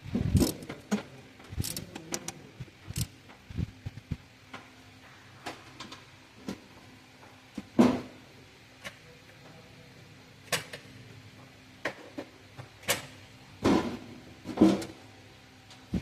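Scattered clicks and knocks of hand tools and metal parts being handled during engine reassembly, a few sharper knocks standing out about eight seconds in and again near the end, over a faint steady hum.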